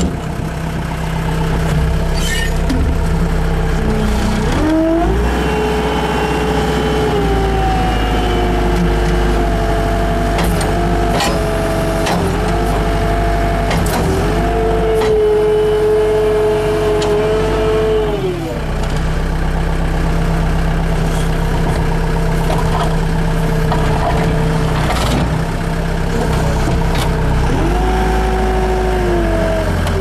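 Skid steer loader engine running under hydraulic load as the pole-grab attachment is worked. A whining pitch rises about four seconds in, holds high for about fourteen seconds and drops back, then rises again near the end. A few sharp knocks come in between.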